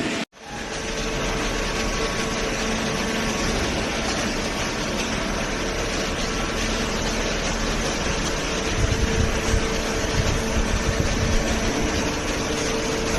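Hydraulic baler running: steady machinery noise with a constant hum from its motor and hydraulic pump, and some low, uneven thumps between about nine and eleven seconds in.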